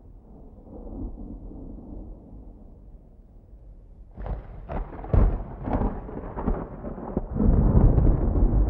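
Thunder: a low distant rumble, then about four seconds in a run of sharp crackling cracks that swell into a louder, sustained deep rumble.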